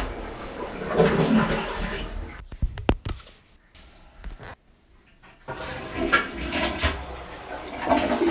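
A short recording played back through a phone voice-changer app, first with its deep-voiced Hexafluoride effect, which cuts off after about two seconds. A few quick clicks follow, then after a quiet gap the same recording plays back unaltered from about five and a half seconds in, a noisy sound.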